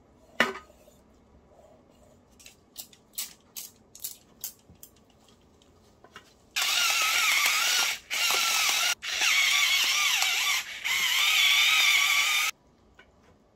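Pepper grinder grinding whole black peppercorns, a loud, gritty mechanical grind in several stretches with short breaks. Before it come a few light clicks and taps.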